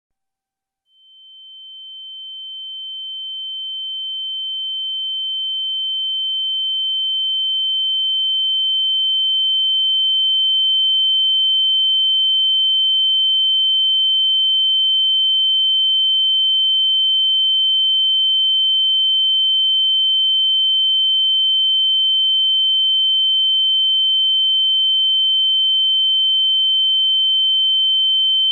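Tinnitus sound effect: a single high-pitched pure tone imitating ringing in the ears. It fades in about a second in, swells over the first ten seconds or so, then holds steady at one pitch.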